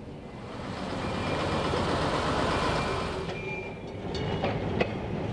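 Double-deck electric street tram running past on its track: a rumble of wheels and running gear that swells and then drops away, followed by a few sharp clicks near the end.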